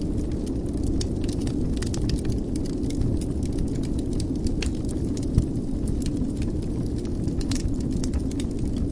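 Wood fire burning in a fireplace: a steady low rumble with frequent small crackles, and one sharper pop about five seconds in.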